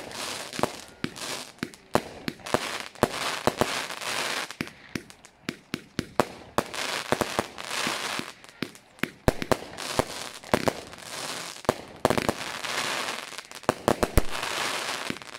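Consumer fireworks battery (cake) firing shot after shot: sharp launch thumps and bangs every fraction of a second, with repeated stretches of crackling from the bursting stars.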